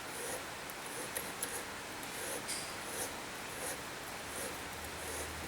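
Faint, irregular scraping and rasping of a hand-turned cutting tool working in a steel-threaded engine mount bolt hole, as it cuts metal.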